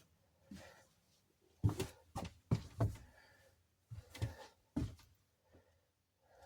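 Handling noises: a few soft thumps and knocks, bunched around two seconds in and again around four seconds in.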